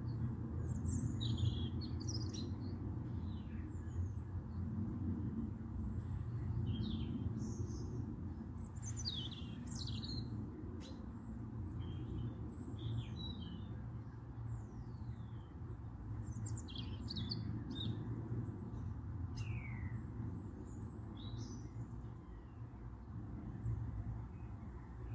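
Small birds chirping and twittering on and off, with several quick falling whistles, over a steady low rumble.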